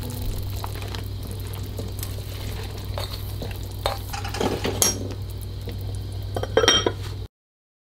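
Soup simmering in an amber glass saucepan, over a steady low hum, with small knocks and glassy clinks as mushroom pieces go in and the glass lid is set on the pot. The loudest clinks come a little under seven seconds in, and the sound cuts off suddenly soon after.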